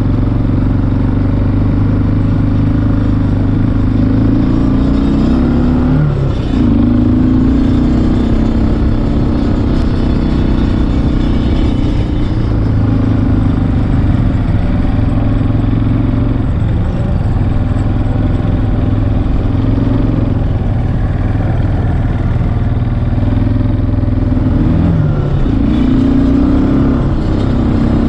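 ATV engine running under way, heard close up from on board the moving quad. Its pitch dips and climbs back about six seconds in and again near the end.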